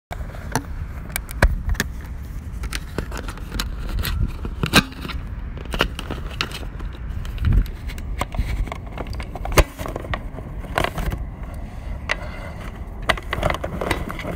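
Irregular sharp clicks and knocks, a few of them louder, over a steady low rumble.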